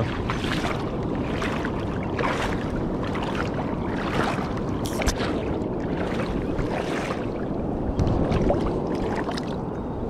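Legs wading through river water, sloshing with each step a little more than once a second, over a steady rush of moving water.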